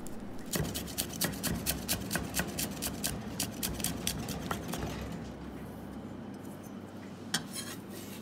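Chef's knife chopping coriander leaves on a wooden chopping block: a rapid run of knife taps, about five a second, thinning to a few scattered taps after about five seconds.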